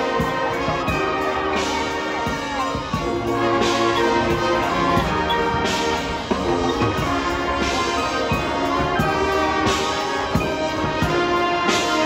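Marching band playing: brass horn line holding sustained chords over front-ensemble and drumline percussion, with accented hits about every two seconds.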